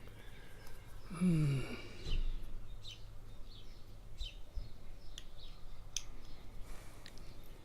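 Small scattered metal clicks and ticks of a padlock being worked with a shim and lock picks. A short falling grunt comes about a second in, and a steady low hum runs underneath.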